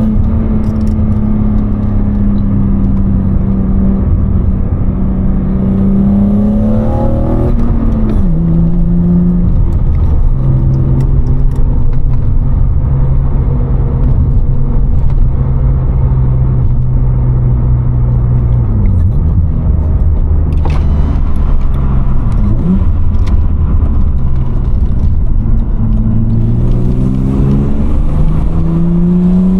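BMW M50B25 2.5-litre inline-six with a Supersprint race exhaust, heard from inside the car while driving. The engine note holds steady, drops sharply in pitch about a quarter of the way in as the car changes up a gear, runs lower and steady, then rises as the engine revs climb near the end.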